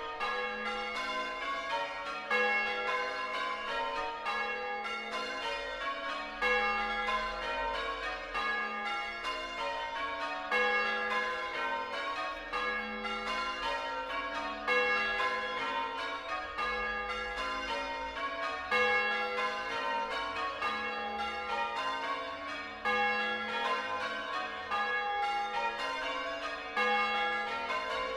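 Change ringing on a ring of six church bells in A flat, tenor about 8 cwt: a steady, unbroken stream of bell strokes following one another in quick succession, each tone ringing on under the next.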